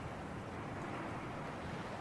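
Sea breeze at the shore: a steady rush of wind with ocean surf washing underneath.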